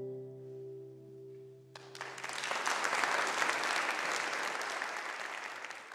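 The song's final acoustic guitar chord rings out and fades. Audience applause breaks in about two seconds in, swells, and is the loudest sound from then on.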